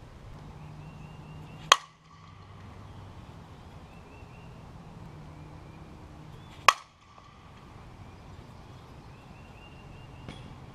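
Softball bat hitting a tossed ball twice, about five seconds apart, each a sharp, loud hit with a brief ring.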